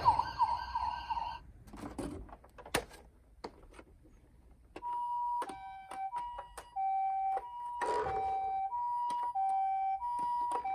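Clicks and knocks of plastic toys being handled, then from about five seconds in a toy ambulance's electronic two-tone siren: the Japanese ambulance "pee-po", alternating a higher and a lower tone about every two-thirds of a second. A brief rustle cuts in once near the eight-second mark.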